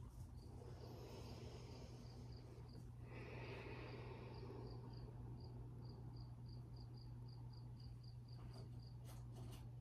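Faint insect chirping: short high chirps repeating evenly, about three a second, over a steady low hum.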